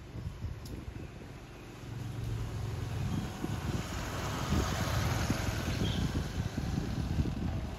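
Road traffic going by: a steady rushing sound of a vehicle that grows louder from about two seconds in, with wind buffeting the microphone.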